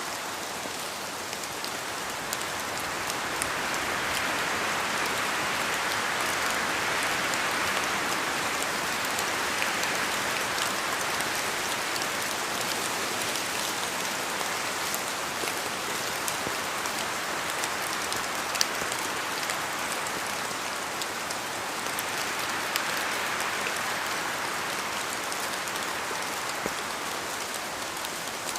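Steady rain falling, with many distinct drops ticking through a dense patter; it swells louder from about four seconds in and again a little past twenty seconds.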